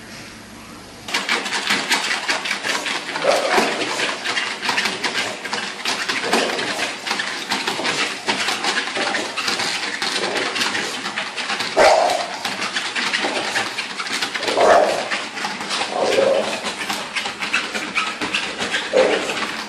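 A dog making short vocal calls every few seconds over a continuous crackling, scratchy noise.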